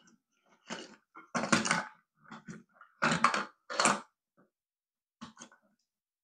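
Plastic parts of a toy robot being handled during disassembly: irregular clacking, rattling and scraping in short bursts, the loudest in the middle.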